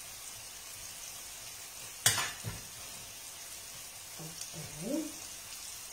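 Chopped eggplant pulp sizzling in a frying pan over a gas flame, a steady hiss. A sharp knock about two seconds in, followed by a smaller one.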